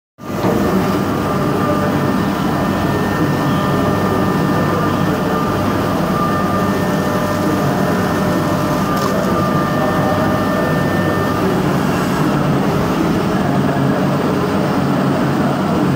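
CNC milling machine roughing aluminium with a 16 mm four-flute end mill at 12,000 rpm under coolant: a steady cutting noise with thin, steady high tones. About eleven seconds in the tones stop as the cut ends, and the spindle and coolant run on.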